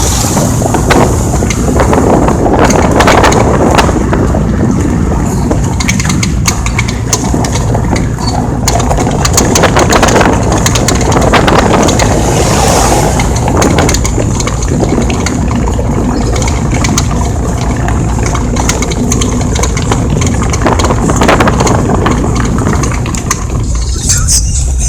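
Fiat Palio driving over a cobblestone street: steady tyre and engine rumble broken by many short knocks and rattles, the rear-end noise the owner is tracking down, which he has found is not the rear hub.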